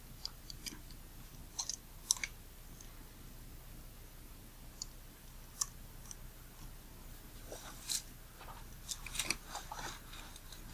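Scattered faint clicks and scrapes of a small screwdriver tightening the tiny screws that hold a lens's aperture (diaphragm) assembly. The clicks come singly at first and cluster more densely near the end.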